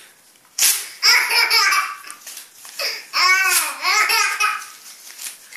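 Baby laughing in two spells of high, gliding squeals, after a short sharp rustle of paper being flapped about half a second in.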